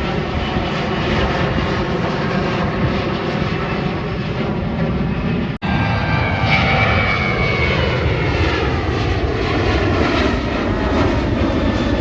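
Airplane engines running loud as a plane passes low overhead, their tones sliding lower in pitch in the second half. The sound cuts out for an instant a little past halfway.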